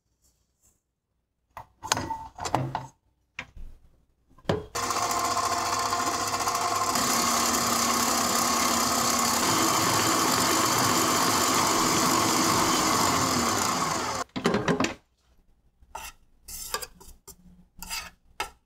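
Stand mixer whipping cream with its wire whisk attachment. The motor runs steadily with a whine for about ten seconds, its sound changing a couple of seconds after it starts, then stops. Metal clicks and clinks follow as the whisk is taken off.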